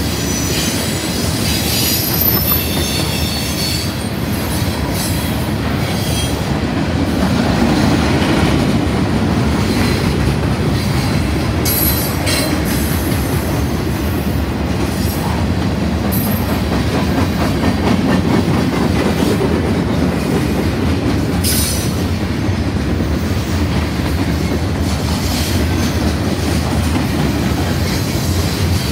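Freight train cars (tank cars, covered hoppers and boxcars) rolling past: a steady rumble of steel wheels on rail with clicking over the joints. High-pitched wheel squeal sounds in the first few seconds, with brief squeals a few more times later.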